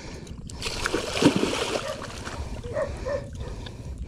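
Hooked giant snakehead thrashing at the water's surface as it is being landed: one splash about a second in that lasts about a second.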